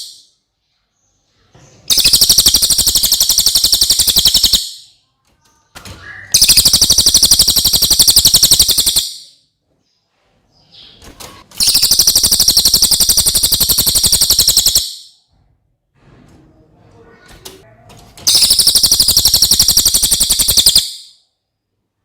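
Cililin bird singing four long, high, rapid trills of about three seconds each, separated by short pauses.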